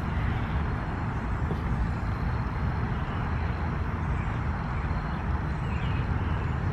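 Steady outdoor background noise: a low rumble with a hiss above it, level throughout, with no single clear event.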